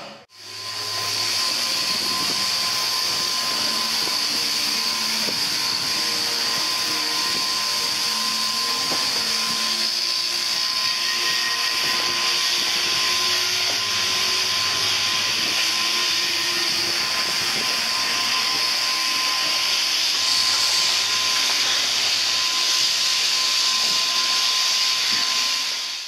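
Sheep-shearing handpieces driven from overhead gear running at work: a steady high hiss with a thin steady whine.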